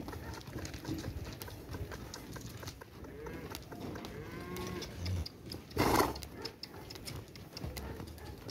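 Cattle mooing, with a drawn-out call that wavers in pitch a little before the middle. A short, loud burst of noise comes about six seconds in and is the loudest sound.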